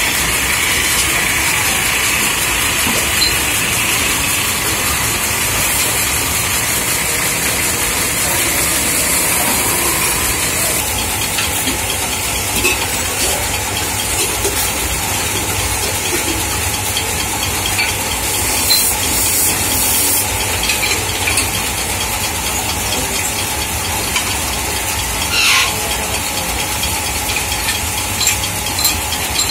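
Belt-driven metal-spinning lathes running steadily, with hand tools scraping against spinning aluminium pots as they are formed. A few short, sharp metallic scrapes stand out, the strongest near the end.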